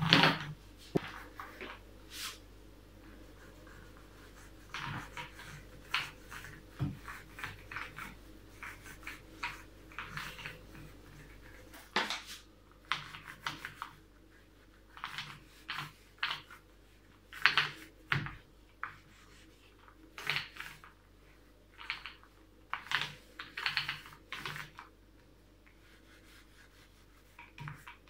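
Small paint roller rolling white paint onto a wooden cupboard, making short rubbing strokes that come irregularly with pauses between them.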